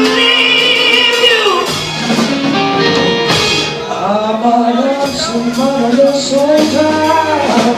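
Live rock band playing a slow soul song, with held, bending sung notes over the instruments.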